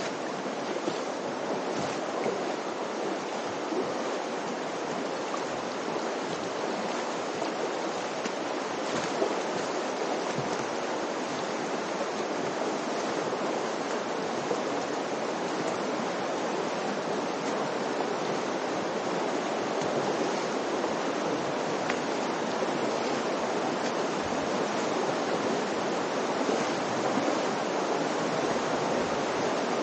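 Steady rushing of the North Fork of the Virgin River flowing over rocks through the Narrows slot canyon, with a few faint ticks here and there.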